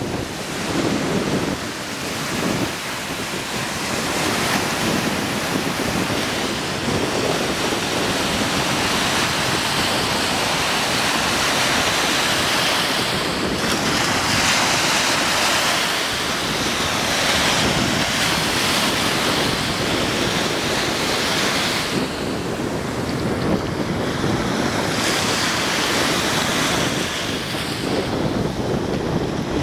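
Small Lake Michigan waves breaking and washing up over a sandy shore: a steady rush of surf that swells and eases every few seconds, with wind buffeting the microphone.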